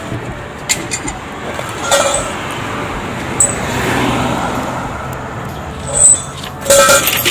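Street traffic: a vehicle's noise swells to a peak about midway and fades again, with a few sharp clicks and knocks, the last of them close together near the end.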